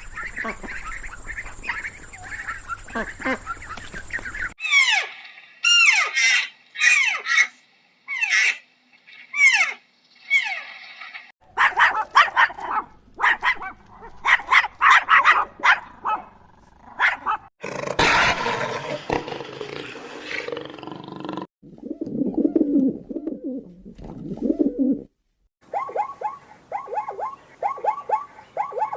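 A string of different animal calls in short clips cut one after another, changing abruptly every few seconds: repeated gliding calls, rapid chattering, and lower calls about two-thirds of the way through.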